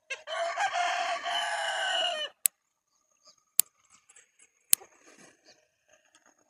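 A rooster crows for about two seconds. Then come three sharp snaps about a second apart, one for each pulse of the electric fence energizer, as sparks jump from the fence tape to a grounded test wire held to it. The sparks show the fence is live.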